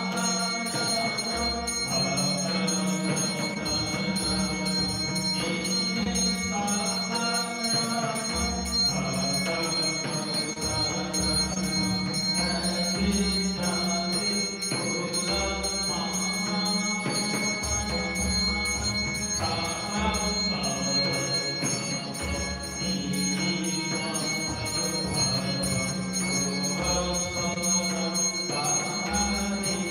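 Bells ringing steadily without a break over devotional arati music, whose melody moves on underneath a continuous high metallic ring.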